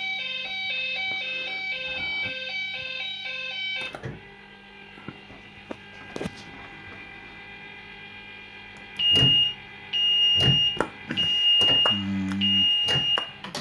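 Fruit machine's electronic sound effects: a quick stepped beeping tune for about four seconds, then a quieter stretch with a few clicks, then four long high-pitched beeps near the end.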